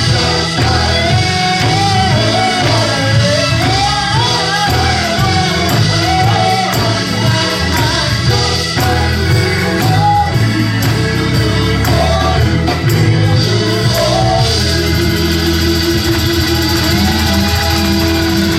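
Gospel worship music with a singer's voice over a steady band accompaniment. The voice drops out about fourteen seconds in, leaving the instruments holding sustained chords.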